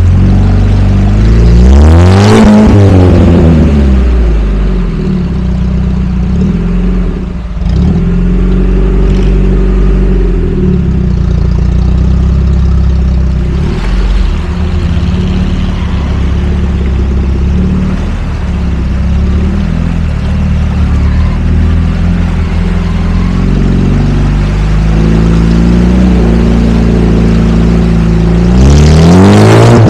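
Lada Niva engine driving off-road, revving up sharply about two seconds in and again near the end, its pitch rising and falling with the throttle in between.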